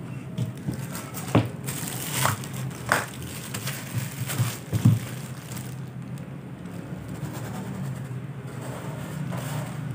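Thin plastic glove crinkling and rustling as a canvas sneaker is handled and turned over, with several sharp crackles in the first five seconds, over a steady low hum.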